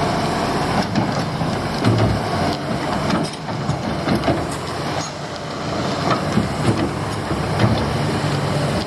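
Heavy diesel construction machinery running, with frequent metallic clanks and rattles throughout.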